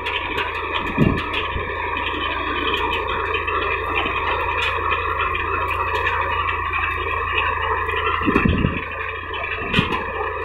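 Tractor engine running steadily under load, pulling a groundnut digger-shaker through the soil, with two short low thumps about a second in and again near the end.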